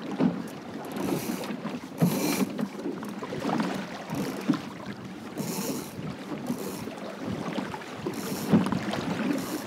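Water rushing and slapping along the hull of a small plywood sailing dinghy moving at speed, with wind buffeting the microphone. Several short hissing bursts come and go, about a second in, around two seconds in, in the middle and near the end.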